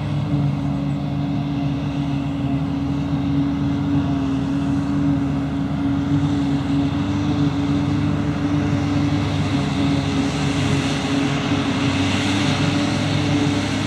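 Large diesel engine of heavy farm machinery running steadily at constant speed, with a hiss that grows toward the end.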